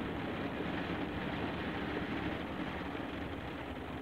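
Kärcher rollover car wash running over the car, its rotating brushes and water spray heard from inside the car cabin as a steady, muffled rushing noise with a low rumble.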